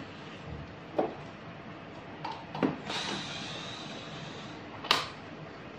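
Handling noise from an opened ARC-200 inverter welding machine being turned around on a wooden table and a cordless drill being set against a screw on its fan panel: four separate knocks and clicks, the sharpest near the end, with a soft hiss in the middle.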